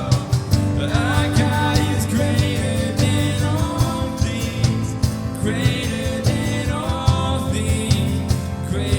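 Worship band music with a steady beat, bass and a sung melody.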